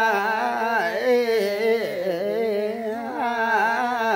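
A man and a woman singing a Limbu folk song unaccompanied, in long held notes with wavering ornaments and no pauses.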